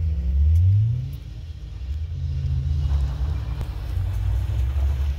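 Ford Ranger pickup's engine revving as it races the rallycross course on snow: the engine note climbs, falls away about a second in, then climbs again.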